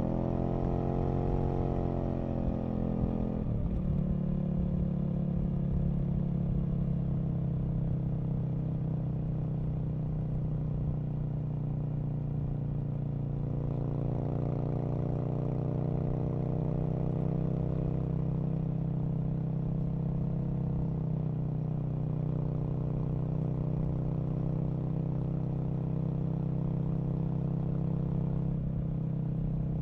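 Aprilia RSV Mille's V-twin engine running under way on the motorcycle. Its pitch climbs for the first two seconds and falls sharply about three seconds in, then holds at fairly steady revs with another gentle rise about halfway through.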